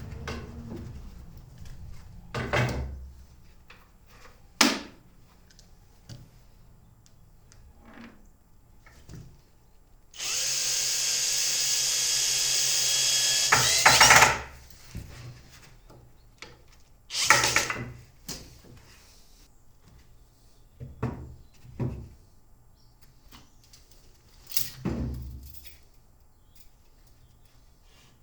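Power drill running steadily for about four seconds, loudest just before it stops. Scattered knocks and clatter of handling tools come before and after.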